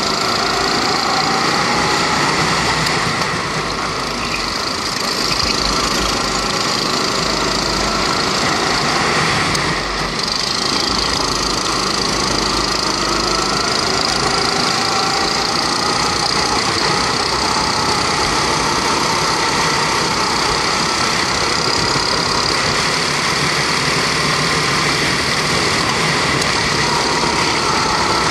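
Onboard sound of a rental go-kart's Honda 270 cc four-stroke engine running hard during a race, its pitch rising and falling with the throttle through the corners.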